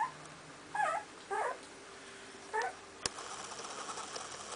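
Two-week-old puppy whimpering in four short, wavering squeaks over the first three seconds, followed by one sharp click.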